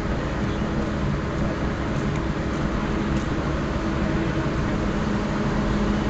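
Idling diesel engine of a standing passenger train: a steady low drone with a constant hum over a rumble.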